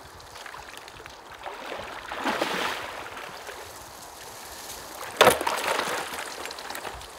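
Waders sloshing through shallow, partly frozen water, then about five seconds in a thrown plastic mallard decoy lands with one sharp splash among broken ice.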